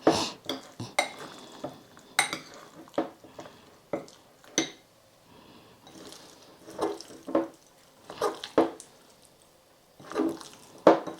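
A utensil clinking and scraping against a bowl at irregular intervals while chicken pieces are stirred in a soy sauce and cornstarch marinade.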